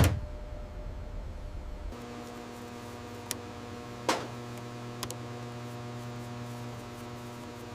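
A sharp metallic clank, then a steady electrical hum that switches on about two seconds in and holds, with a few light knocks over it.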